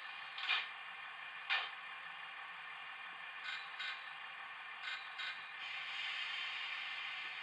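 Class 165 DCC sound chip playing through the model train's small loudspeaker: a steady thin hiss with no low end, broken by short sharp clicks, two single ones and then two quick pairs. The hiss grows a little louder near the end.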